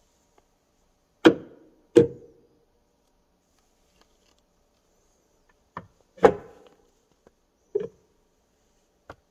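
Fuel filler door of a Hyundai Santa Fe being pushed shut, giving about six sharp plastic clicks and knocks spaced irregularly, the loudest about a second in and near the middle. The door's latch does not hold it shut, and it keeps opening by itself.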